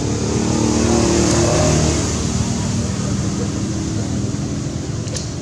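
A motor vehicle's engine running as it passes, swelling to its loudest a second or two in and then easing off.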